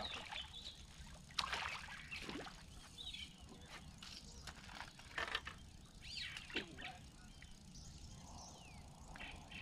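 A hooked fish splashing at the water's surface in several short, sudden splashes as it is reeled in and landed at the bank, with birds chirping.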